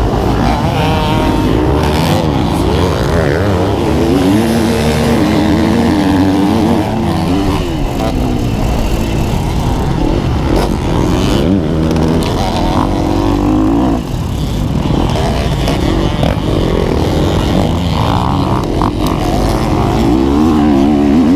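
Dirt bike engines revving hard, pitch climbing and dropping again and again as they accelerate.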